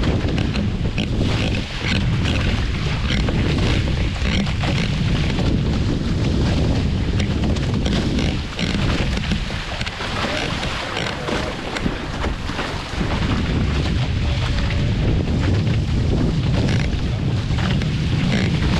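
Heavy wind buffeting the microphone, a steady low rumble, with water rushing and splashing along the hull of a Hobie Fox catamaran under sail.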